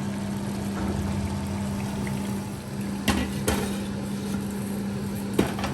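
Chicken curry sizzling and bubbling in a pot on the stove over a steady hum, with a few sharp clicks about three, three and a half and five and a half seconds in.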